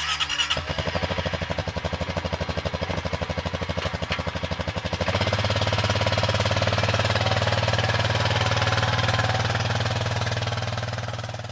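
ATV engine idling with a rapid, even chugging, then running louder and smoother about five seconds in. It fades out near the end.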